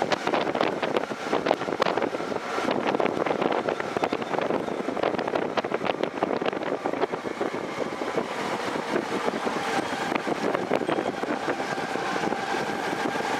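Wind rushing over the microphone of a camera moving along the road among a pack of cyclists, with constant rattling and clicking from the ride.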